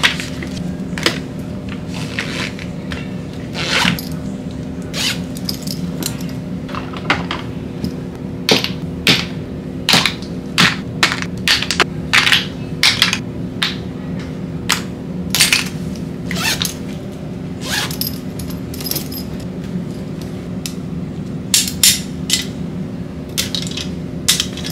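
Small plastic and glass skincare and makeup bottles, tubes and cases clicking and knocking as they are handled and dropped into fabric cosmetic pouches, in many quick irregular taps, busiest in the middle and again near the end. A steady low hum lies under it.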